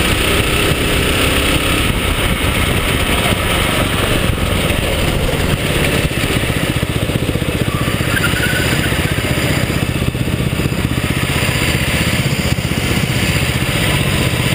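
Go-kart engine running hard at racing speed, heard from onboard the kart, steady and loud throughout.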